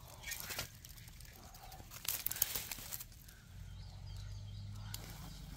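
Light crackling and rustling in the first three seconds, then quieter outdoor ambience with a steady low hum and a few faint bird chirps.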